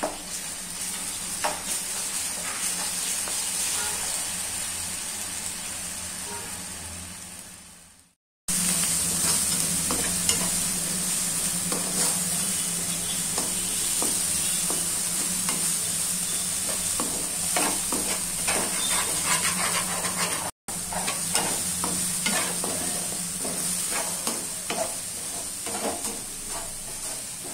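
Sliced onions and green chillies sizzling in oil in a kadai while a spatula stirs and scrapes them around the pan, with scattered clicks of the spatula on the pan. The sound fades out about eight seconds in, then the frying and stirring resume.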